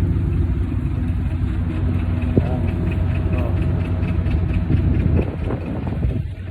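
Semi truck's diesel engine idling steadily with a constant low hum.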